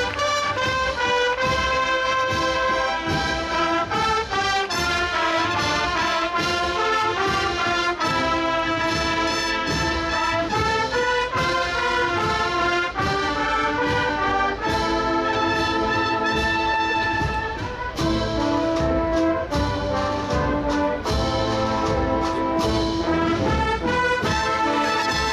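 Processional brass band playing a cheerful Holy Week march (marcha cofrade): trumpets and trombones carry the melody over a steady drum beat.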